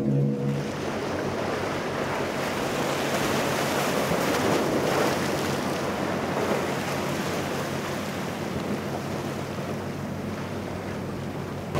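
Waves breaking, with wind buffeting the microphone: a steady rush that swells about four to five seconds in.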